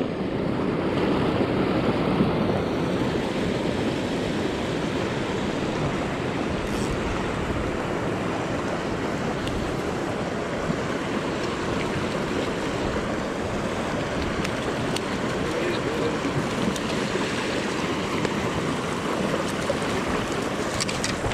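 Steady rushing of a high river swollen with snowmelt, its water pouring through rapids in an even, unbroken wash.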